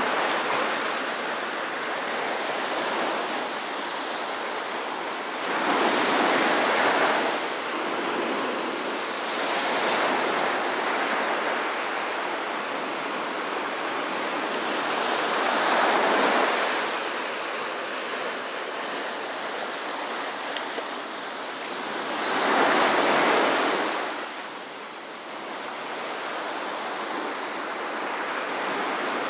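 Small ocean waves breaking and washing up a sandy beach: a steady surf hiss that swells four times, several seconds apart, as each wave breaks.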